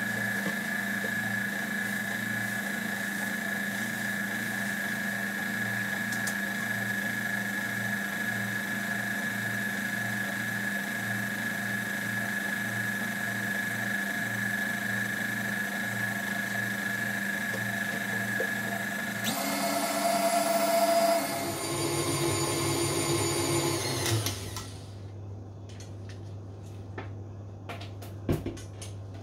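Stand mixer motor running steadily as its flat beater whips thick chocolate ganache in a stainless steel bowl. About two-thirds in, the pitch shifts and the sound gets louder, then the motor shuts off. A few light clicks and a knock follow as the mixer head is raised.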